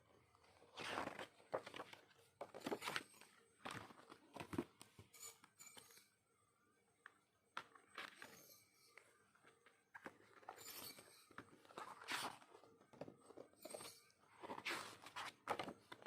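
Packaging and paper merchandise being handled, rustling and crinkling in irregular bursts, with a quieter pause midway.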